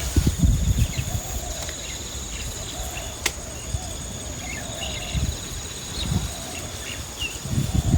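Steady high-pitched insect trilling, with a few short chirps, low thumps near the start and end, and one sharp click about three seconds in.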